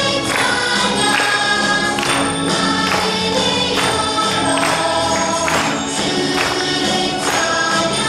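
Upbeat Christian praise song: voices singing together over a backing track with a steady beat.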